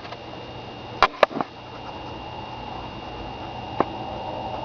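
Sony VX1000 camcorder recording its own quiet running noise with manual focus set: a steady low hum and a thin high tone, with no autofocus noise. Two sharp clicks come about a second in and another near four seconds.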